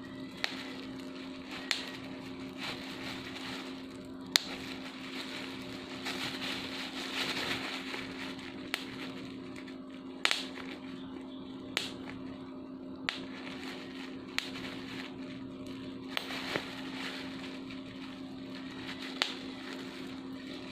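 Bubble wrap being popped bubble by bubble: about ten sharp, separate pops at irregular intervals, the loudest about four seconds in. In the middle, a stretch of softer crackling as the plastic is crumpled. A steady low hum sits underneath.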